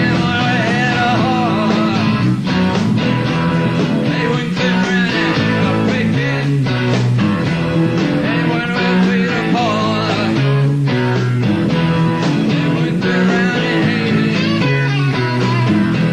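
Live rock band playing, with electric guitar lines over a moving bass line.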